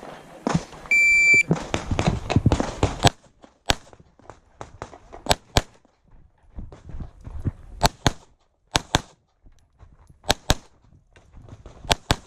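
A shot timer's electronic start beep, one steady high tone about a second in. About two seconds later a Glock 17 Gen 3 9 mm pistol starts firing, about a dozen shots, mostly in quick pairs (double taps) with short pauses between them.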